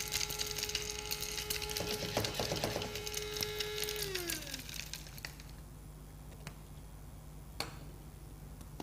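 Small electric spice grinder running with a steady whine and the rattle of black cardamom being coarsely ground. About four seconds in the motor is switched off and winds down with a falling pitch, and a single click comes near the end as the grinder is handled.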